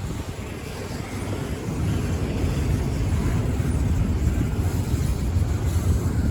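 Freight train rolling through the crossing: a steady low rumble that grows louder over the first two seconds and then holds, with wind buffeting the microphone.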